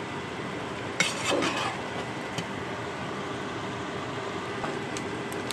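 A spatula stirring shrimp in a wok-type stir-fry pan, with a sharp scrape against the pan about a second in and a few light clicks later, over a steady hiss.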